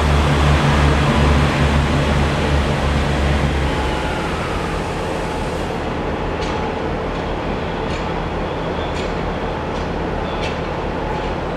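Class 143 Pacer diesel railbus pulling away, its underfloor diesel engine giving a strong low drone as the rear of the unit passes. After about three and a half seconds the drone fades into a steady background rumble as the train draws away, with a few faint clicks later on.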